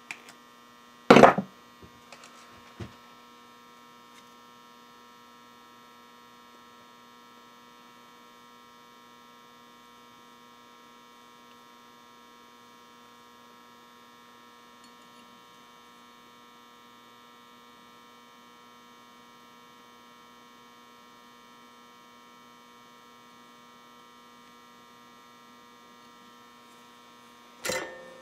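Faint steady electrical mains hum, made of several steady tones. A sharp knock about a second in, a few small clicks after it, and a short burst of handling knocks near the end.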